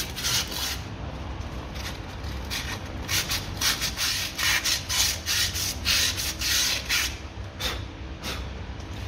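Sandpaper scrubbing rust off the steering knuckle's bore where the wheel hub seats, in repeated back-and-forth strokes, about two a second at the busiest, with short pauses. The rust layer made the old hub hard to remove, and the sanding cleans the seat so the new hub goes in.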